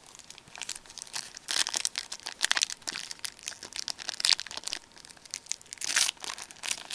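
Foil wrapper of a hockey card pack being torn open and crinkled by hand: a busy run of irregular crackles and rustles.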